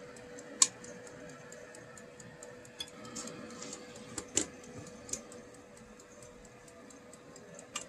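Coffee beans popping in first crack: a few sharp, irregular cracks, the loudest about half a second in, over the steady hum of the SC/TO roaster's turbo-oven fan and Stir Crazy stirring motor. The sparse pops mark the start of first crack, about eight minutes into the roast.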